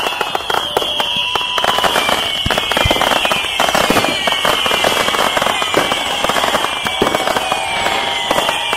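Fireworks and firecrackers going off in a dense, continuous crackle of rapid pops, with whistling fireworks sliding in pitch over it.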